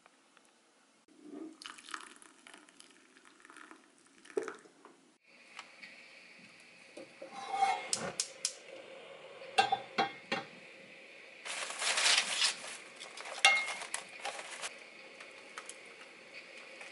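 Pots and pans being handled on a gas stove: a stainless-steel saucepan and a frying pan set down and shifted, with several sharp knocks about halfway through and a louder stretch of clatter and rustling later, over a steady hum.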